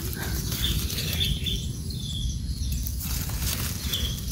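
Rustling and brushing noise of movement through forest undergrowth, with a few short high chirps about a second in and again near the end.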